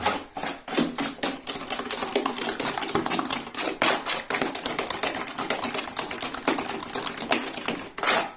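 Drywall joint compound being stirred vigorously by hand in a bucket: a quick, steady run of scraping and clicking strokes, a few a second, as the mixing tool works through the mix and knocks against the bucket.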